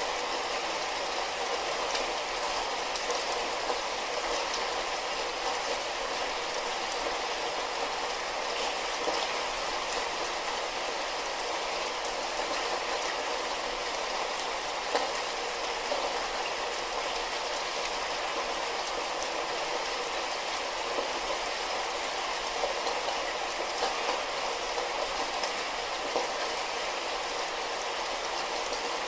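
Steady light rain: an even hiss of rainfall with scattered drops ticking louder now and then.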